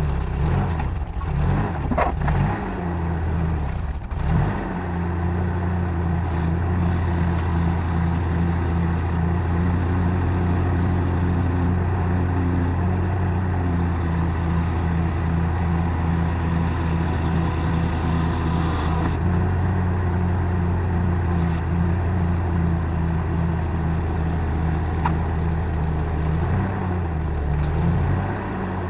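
Ford 9N tractor's four-cylinder flathead engine running. Its speed wavers for the first few seconds, then it settles into a steady run with a regular pulse.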